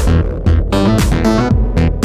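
Background music: an electronic track with bass, plucked guitar-like notes and a steady beat.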